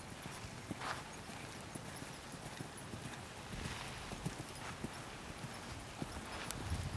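Hoofbeats of a horse trotting on sand arena footing, a faint run of soft thuds.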